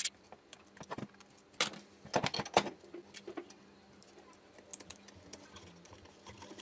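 Hands and tools handling an old circular saw and its small metal parts: scattered clicks and light metal clinks, with a cluster of sharper knocks about two seconds in.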